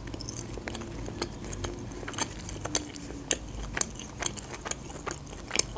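Close-miked chewing of a flaky puff pastry: a steady run of small wet mouth clicks and crackles, about two a second.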